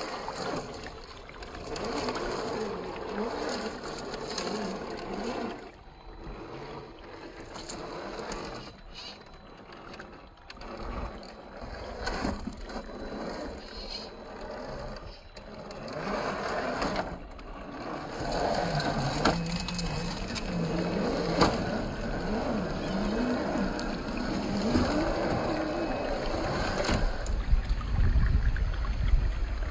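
Scale RC rock crawlers' electric motors and geared drivetrains whining as they climb over rocks, the pitch wavering as the throttle changes, slowed down and lowered in pitch, with a few sharp knocks of tyres and chassis on rock.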